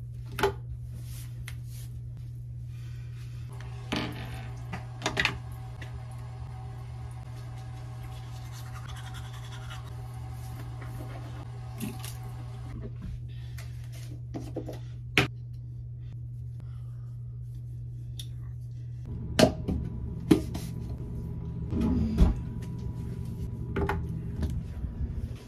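Steady low room hum with scattered knocks, thuds and clatter of objects being handled, a cluster of louder thuds about three-quarters of the way through.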